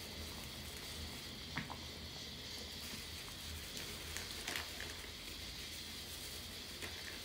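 Quiet room tone: a steady low hum and hiss, with a few faint small clicks and taps from hands at work at the table.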